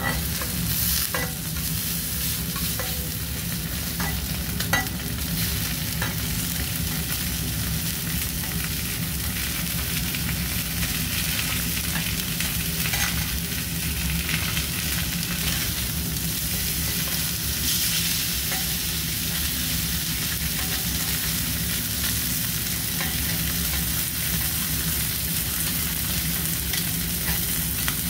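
Kobe beef sizzling steadily on a hot steel teppanyaki griddle. A few light clicks come from the knife and spatula touching the steel.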